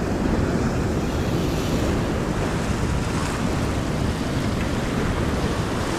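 Ocean surf washing against the rock ledge with wind buffeting the microphone: a steady, even rush with no distinct events.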